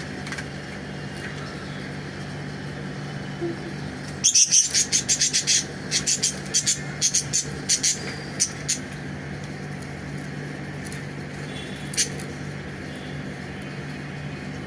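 Pet budgies bathing: a quick run of short, sharp, high-pitched bursts lasting about four seconds, then a few scattered ones, over a steady low hum.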